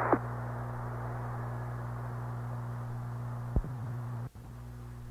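Open radio channel between transmissions: a steady, muffled hiss over a low hum. There is a click about three and a half seconds in, and the hiss drops abruptly a moment later.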